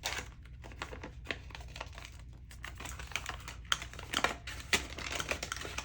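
Paper bills and cash envelopes being handled: a run of light, irregular rustles and clicks as a $5 bill is found and slipped into a budget envelope, busier in the second half.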